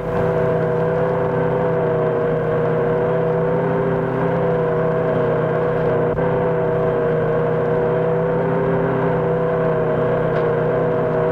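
International truck engine running at a steady, unchanging pitch while pulling a full load up a steep grade: a low drone with a steady whine above it.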